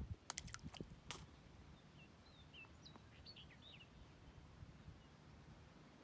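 A small splash as a baby turtle drops into pond water, followed by a few sharp clicks in the first second. Then faint birds chirp for a couple of seconds.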